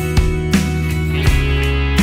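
Instrumental background music with guitar, sustained chords and a regular beat.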